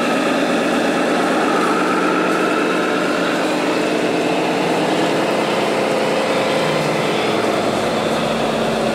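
Radio-controlled scale model truck driving: a steady whine of its motor and gears, with several pitches sliding slowly up and down.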